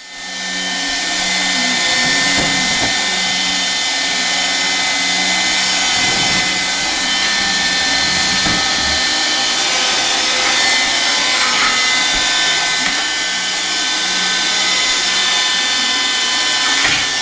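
Hard-floor vacuum cleaner switched on, its motor spinning up over the first second and then running steadily with a high whine.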